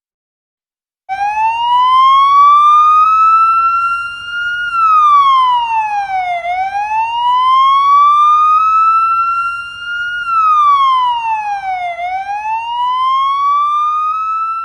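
Emergency-vehicle siren wailing: a loud tone that climbs slowly in pitch for about three seconds, then falls for about two, three rises in all, starting about a second in.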